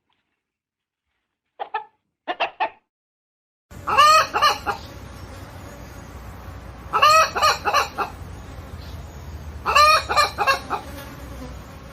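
Hen clucking: a few short clucks, then louder bursts of cackling calls about every three seconds from about four seconds in, over a steady background hum.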